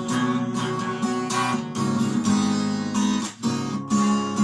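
Acoustic guitar strummed in a steady rhythm, playing chords between sung lines of a song.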